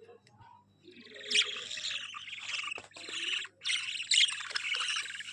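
Budgerigars chattering, a dense run of rapid chirps and warbles that starts about a second in, with a short break about three and a half seconds in.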